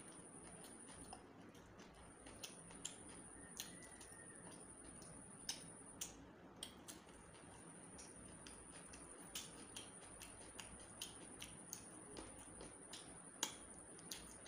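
Close-up eating sounds: irregular soft clicks and smacks of a mouth chewing rice and chicken curry eaten by hand, a few each second. A faint steady high-pitched whine runs underneath.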